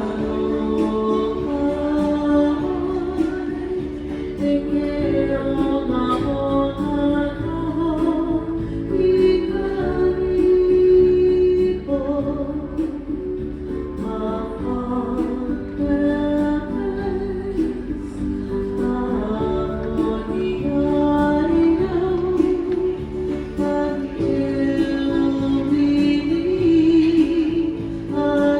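Background music: a song with a woman singing over plucked guitar.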